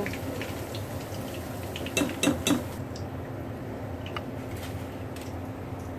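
Wire spider strainer clinking against a ceramic-coated wok as deep-fried fish pieces are scooped out of the oil. There is a cluster of clinks about two seconds in and a few lighter ones after, over a steady low hum.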